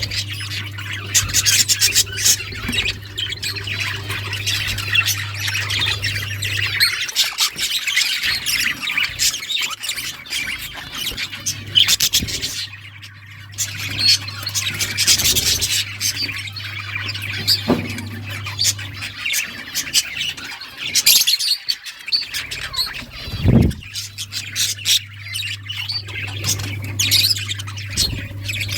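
A flock of budgerigars chirping and squawking continuously in quick, overlapping calls, over a steady low hum that drops out twice.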